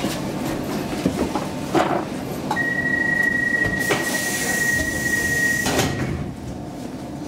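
Stockholm Metro C14 train's door-closing warning: a steady high beep held for about three seconds. Partway through, the doors slide shut with a hiss and knocks, over the rumble of the train standing at the platform.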